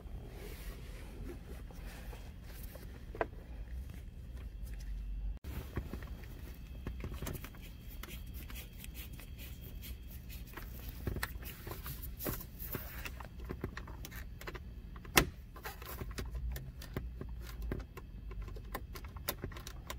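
Scattered small clicks and knocks of screws being taken out of a car's interior trim panel by hand, with one sharper click about fifteen seconds in, over a steady low hum.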